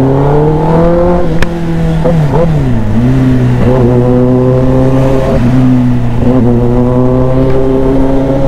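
Kawasaki ZX-10R superbike's inline-four engine, heard from the rider's seat. It revs up, eases off with a falling pitch about two seconds in, then runs steadily at low road speed, with a slight rise near the end and a brief click about one and a half seconds in.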